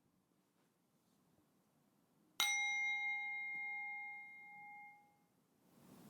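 A single meditation chime struck once about two seconds in, its clear tones ringing out and fading over about three seconds, marking the end of the silent listening period.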